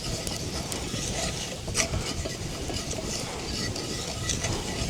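A spoon stirring and scraping a flour-and-oil roux of chickpea flour in a pan, with scattered sharp clicks and scrapes over a low, steady sizzle.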